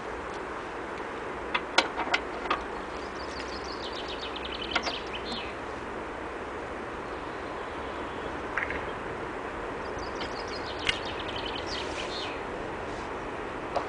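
Steady outdoor background noise with two short, rapid high chirping trills and a handful of sharp clicks.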